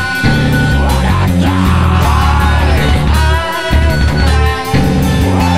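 Electronic rock instrumental music with guitar over a heavy bass line.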